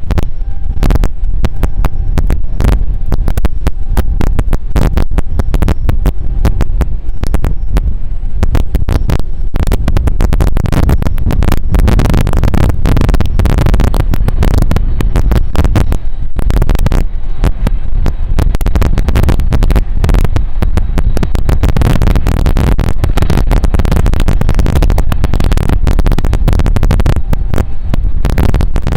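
Heavy wind buffeting the microphone: a loud low rumble crackling with gusts.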